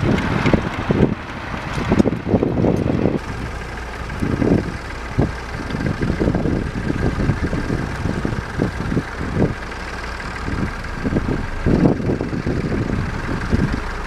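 Vintage tractor engines running under ploughing work, with uneven gusts of wind buffeting the microphone.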